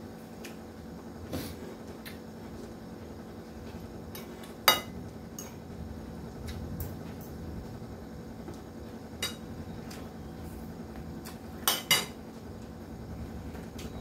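Metal spoon clinking against a ceramic plate while eating: a few sharp clinks, the loudest about five seconds in and a quick pair near twelve seconds, over a faint steady hum.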